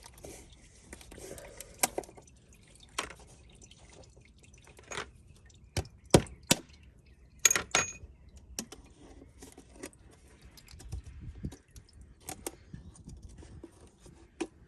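Scattered clicks, taps and light knocks from handling a new oil filter and a bottle of motor oil, with the loudest cluster about halfway through.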